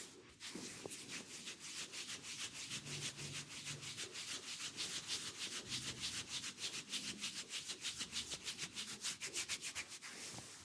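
Hands rubbing briskly back and forth during a massage in a steady rhythm of about five strokes a second.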